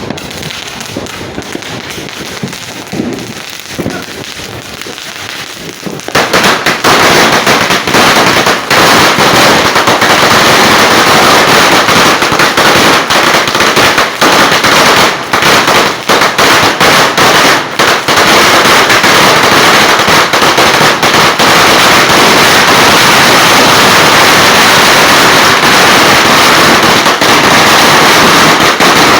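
A 1,000-round "Diablo" sawa firecracker string going off. After a few quieter seconds of scattered pops, it bursts into a continuous rapid crackle of bangs about six seconds in and keeps going without a break.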